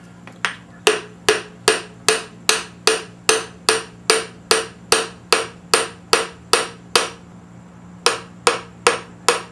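Butt of a wooden hammer handle tapping a piston down through a ring compressor into a cylinder bore of a Ford 302 V8 block. The taps are steady, about two and a half a second, each with a short metallic ring, and pause for about a second near the end. The piston is sliding into the bore with its rings compressed.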